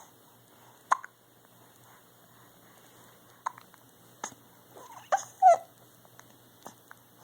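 Baby hiccuping: five or six short, sharp hiccups at irregular gaps, with a brief squeaky vocal noise just after the middle.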